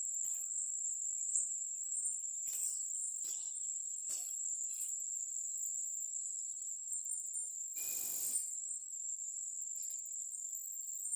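Insect chorus giving one steady high-pitched drone, with a few short soft noises over it, the loudest about eight seconds in.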